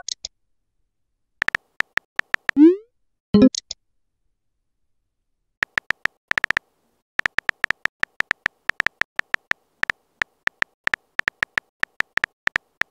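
Phone texting-app sound effects: a few keyboard tap clicks, then a short rising swoosh and a bubbly pop as a reply message comes in about three seconds in. From about six seconds in, rapid keyboard tap clicks, about five a second, as a message is typed out.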